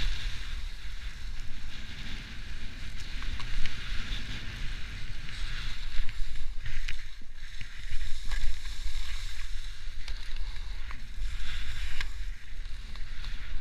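Skis hissing and scraping over snow during a fast downhill run, the hiss swelling and fading with each turn, with wind buffeting the microphone.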